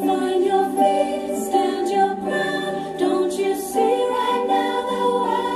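Recorded choral pop song playing: a choir singing a slow, sustained melody over soft accompaniment.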